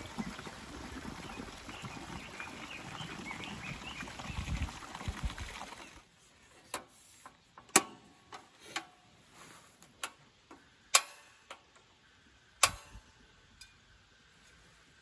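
Outdoor ambience with wind gusting on the microphone and a few faint bird chirps. About six seconds in this stops abruptly, and a series of about nine sharp, separate plastic-and-metal clicks follows as the canister cover and control knob of an Iwatani cassette gas heater are worked by hand.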